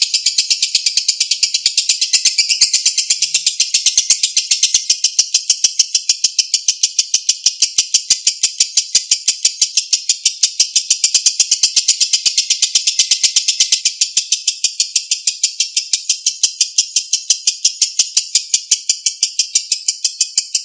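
Lovebird giving a long, unbroken ngekek: a fast, even chattering trill of high, sharp notes kept up without a pause.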